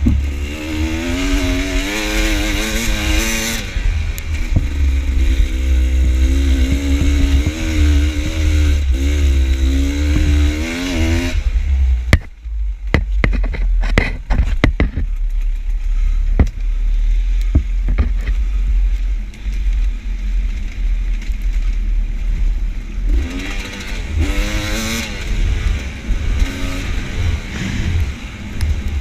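Enduro dirt bike engine revving up and down over rough trail. About twelve seconds in, the engine drops low for roughly ten seconds while sharp knocks and clatter come through. Near the end the engine revs up again.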